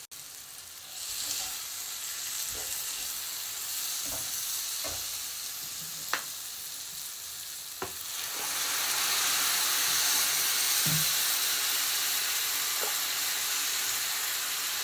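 Chopped onion, pepper and spice masala sizzling in hot oil in a frying pan, being fried down before the fish goes in. A slotted spatula stirring it clicks and scrapes against the pan now and then, and the sizzle grows louder about eight seconds in.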